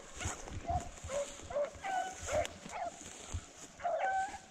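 Rabbit-hunting hounds baying, a dozen or so short yelping calls at uneven intervals: the pack giving voice as it trails a rabbit.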